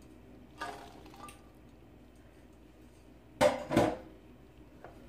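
Washed pinto beans tipped into a ceramic slow cooker crock: a soft thud about half a second in, then two sharp knocks of dishware against the crock in quick succession a little after three seconds.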